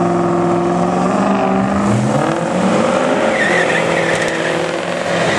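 Drag-racing car engines running loud and steady, dropping in pitch about two seconds in and then climbing again. A brief wavering high squeal comes about three and a half seconds in.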